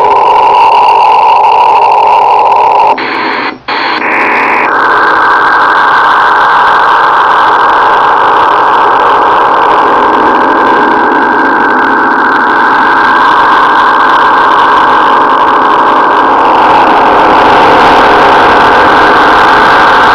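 Strong, steady rushing noise-like signal on 9.803 MHz, heard through a shortwave receiver demodulating in sideband/CW mode and confined to the receiver's narrow audio passband. It reads 40+ on the S-meter, and the operator later suspected it was a HAARP transmission. About three seconds in, the sound changes character and briefly drops out, then resumes steadily.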